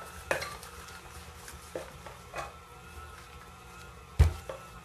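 Plastic measuring cups and baking utensils dropped into a plastic mixing bowl: a few light clacks, then one loud knock about four seconds in.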